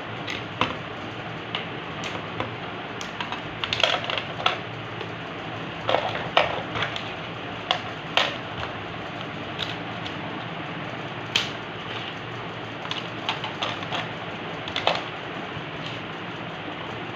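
Irregular clicks, taps and light crinkles of packaging and toy pieces being handled, over a steady background hiss.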